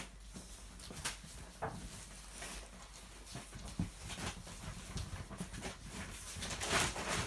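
A litter of seven-week-old puppies scampering and scuffling on a laminate floor: their claws and paws make quick, irregular clicking and pattering. There is a short squeak about a second and a half in and a louder scuffle near the end.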